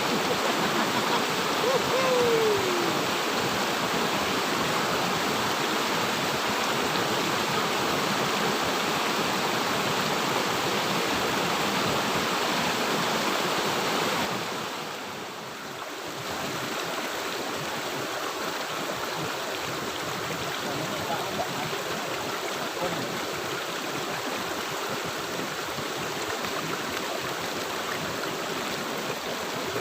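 River water flowing with a steady rushing hiss, dropping a little in level about halfway through.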